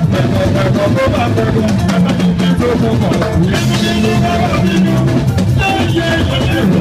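Juju band playing live and loud, with drums, percussion and guitar, and a man singing through the microphone over the band.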